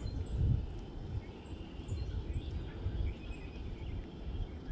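Outdoor ambience: a low, uneven rumble with scattered short, high bird chirps.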